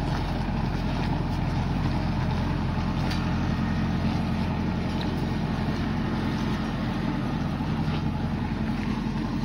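John Deere tractor's diesel engine running steadily at low speed as it pulls a trailer loaded with oil palm fruit bunches.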